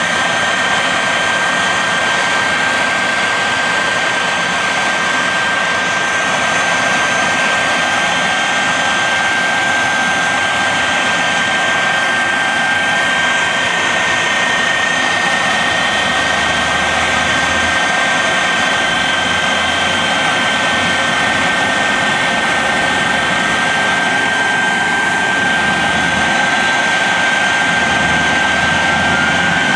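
The Shockwave jet truck's three Pratt & Whitney J34 jet engines idling, a loud steady rushing noise with a high whine held on one pitch. Near the end a second whine begins to rise in pitch.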